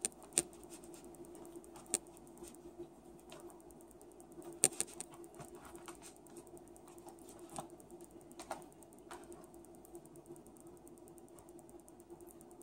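Metal knife and fork scraping and clicking against a plastic takeout container while steak is cut, with a few sharper clicks spread through, over a faint steady hum.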